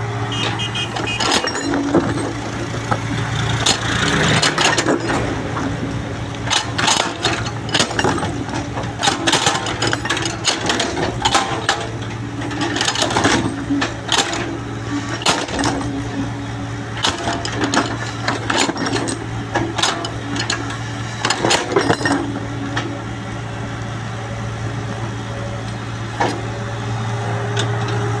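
Excavator's diesel engine running steadily under load, with frequent irregular clanks and knocks of the bucket and arm working in soil; the knocking eases off in the last few seconds.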